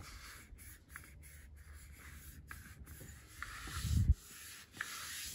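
A hand sliding and rubbing over the primed plastic shell of a motorcycle helmet: a faint, dry swishing, with a low bump about four seconds in.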